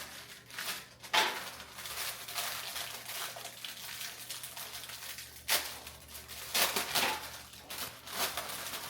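Graham crackers being handled on a small baking sheet: a run of crisp crackles and taps, louder ones about a second in and several between five and eight and a half seconds.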